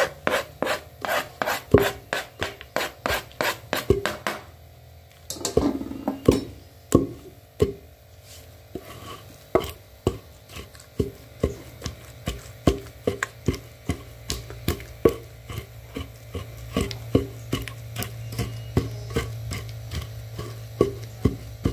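Long wooden pestle pounding a rice-flour mixture in a heavy mortar, a steady beat of about two to three dull strikes a second. The pounding breaks off briefly about four seconds in, then goes on with softer strikes.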